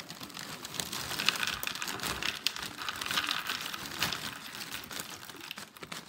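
Cereal pouring from a crinkling plastic bag into a plastic bowl: a steady run of small clicks and rustles as the pieces rattle in.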